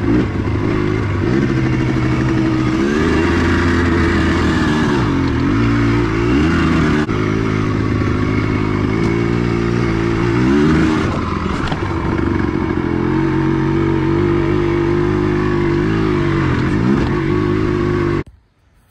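Yamaha Blaster's 200cc two-stroke single-cylinder engine revving up and falling back again and again while being ridden, freshly rebuilt and still being broken in. The sound cuts off suddenly near the end.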